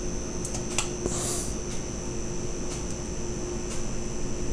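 Quiet room tone: a steady hum with a thin high whine, a few faint clicks, and a short soft hiss about a second in.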